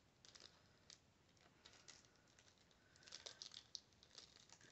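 Faint crinkling and small clicks of an old sealed baseball card pack's paper wrapper being picked at with the fingers, its seal stuck. The crackles come in scattered bunches, busiest about three seconds in.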